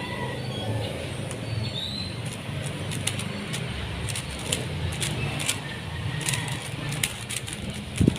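Sharp plastic clicks of a 3x3 speedcube (MoYu RS3M 2020) being turned, scattered at a few a second from about three seconds in, over a steady low rumble.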